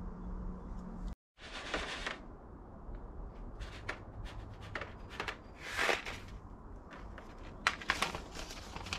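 Seed packets, a clear plastic bag and a paper packet, crinkling as they are handled, in several short rustles, the loudest about two thirds of the way through.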